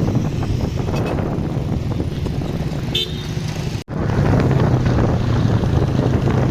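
Vehicle engine and road noise while travelling through traffic, with a short horn toot about three seconds in. The sound cuts out for an instant just before four seconds.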